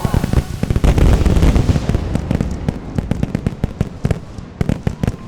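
Display fireworks shells bursting in rapid succession: a dense volley of deep booms and crackling about a second in, thinning out into scattered sharp pops and crackles toward the end.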